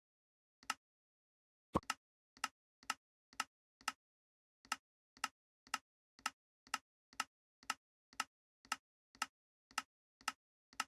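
Short, sharp clicks repeating evenly about twice a second, with dead silence between them, two longer pauses in the first few seconds and one louder click about two seconds in.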